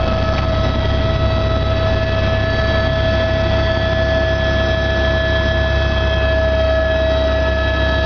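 Helicopter in flight: a steady turbine whine over the constant low drone of the rotor.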